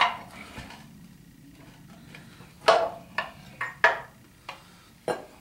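Metal clinks and knocks as a manual transmission is worked into line with a V8 engine's bellhousing. One knock comes right at the start, then a cluster of about six sharp clinks in the second half.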